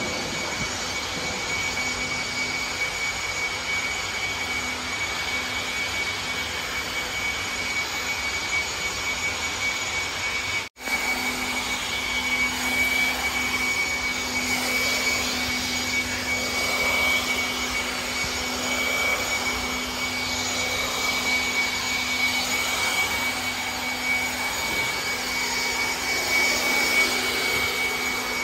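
Blower running steadily with a constant high whine, blowing dust off the floor. The sound cuts out for an instant about eleven seconds in and then carries on.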